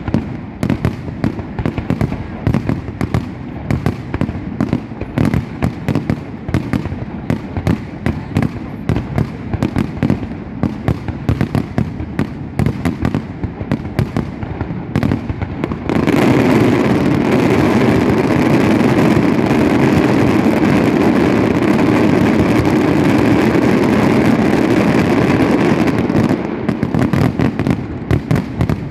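Fireworks and firecrackers going off in a rapid string of sharp bangs, several a second. About sixteen seconds in they merge into a dense, continuous barrage that is louder than the rest. Near the end this thins back out to separate cracks.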